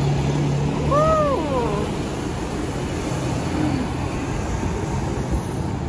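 Steady road-traffic noise with a low, level hum running under it. About a second in comes one short, high squeal that rises and then falls in pitch.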